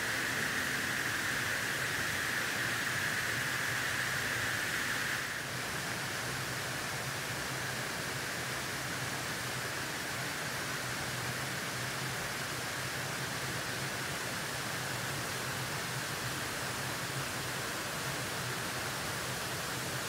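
Steady rushing of falling water from a waterfall into a canyon pool. About five seconds in the sound changes abruptly and becomes slightly quieter.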